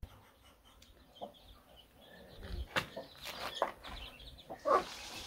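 Birds calling in short repeated high notes, with a few knocks and a louder call near the end.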